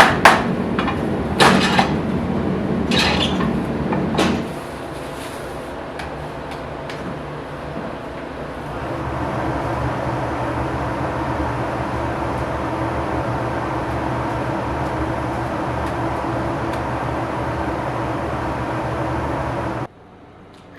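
Kitchen work sounds: several sharp knocks and clatters in the first few seconds, then a steady mechanical hum with a low drone that gets louder about eight seconds in and cuts off abruptly near the end.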